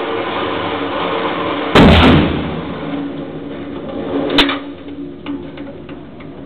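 Steady whirring hum of the range's electric target carrier running the paper target in to the firing point. About two seconds in there is one loud bang with a short echo, and a sharp click comes a couple of seconds later as the target arrives.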